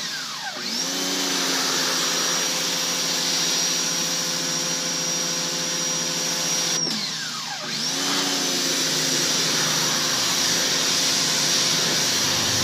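Greenworks 1600 PSI electric pressure washer running, its motor and pump whining steadily under the hiss of the water spray from the wand. The motor spins up within the first second, winds down about seven seconds in as the trigger is let go, and spins up again a second later.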